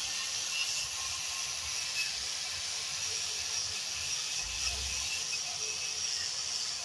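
Angle grinder with a wire brush scouring old cedar wood: a steady, high-pitched hiss.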